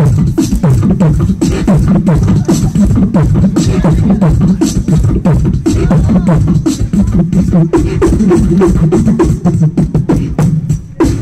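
Solo beatboxing amplified through a handheld microphone: rapid, rhythmic percussive mouth sounds over a continuous low bass line.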